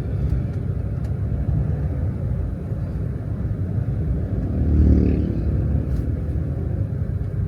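Steady low rumble of traffic, with a vehicle passing close and swelling louder about five seconds in.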